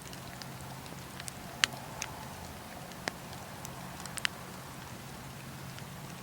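Wood fire crackling, with irregular sharp pops of burning wood, the loudest about one and a half seconds in.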